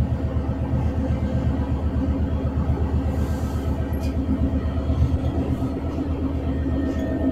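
Class 66 locomotive's EMD two-stroke V12 diesel engine running, a steady, fast-pulsing low rumble heard from inside the cab as the freight train rolls along.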